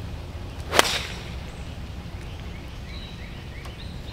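A 9-iron striking a golf ball: one sharp crack about a second in.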